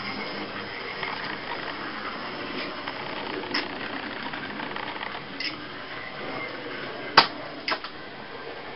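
Steady whirr of a model trolleybus's small electric motor running along the layout, with a few sharp clicks, the loudest about seven seconds in.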